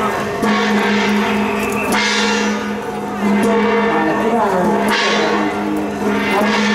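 Large temple gong struck slowly, about every two to three seconds, ringing on between strikes.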